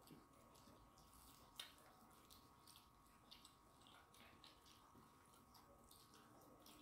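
Very faint soft wet clicks and squelches of hands mixing rice with curry on steel plates, with one sharper click about one and a half seconds in.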